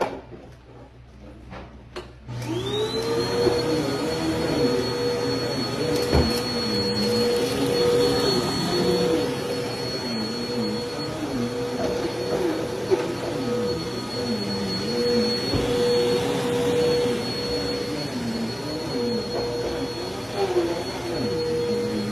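Dirt Devil Vigor cyclonic pet vacuum cleaner switched on about two seconds in, its motor spinning up to a steady high whine and then running, with a lower tone that wavers up and down. A few clicks come before it starts.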